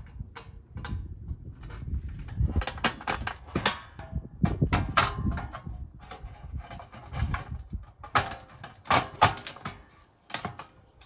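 Stainless steel stove parts clinking and knocking as they are handled and fitted together, an irregular run of sharp clicks and clatters over a low rumble.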